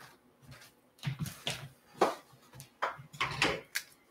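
A stack of plastic-sleeved trading cards being picked up and squared up by hand: a string of short plastic rustles and light taps, about eight in all.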